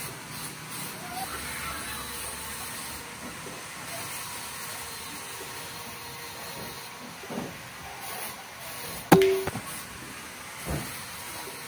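A single CO2 air rifle shot about nine seconds in: a sharp crack followed by a short ring. It sounds over a steady background hiss, with a softer knock a couple of seconds before the shot and another just after it.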